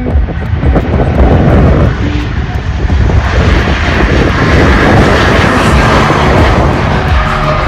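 Airplane passing overhead, its engines making a loud, steady noise that swells toward the middle of the pass.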